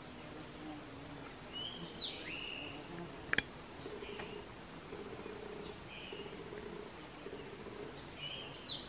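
Songbird calling outdoors: short chirps that sweep quickly in pitch, twice as a longer two-part phrase, about 2 seconds in and again near the end. A low buzzing runs for a few seconds in the middle, and there is one sharp click just after the first phrase.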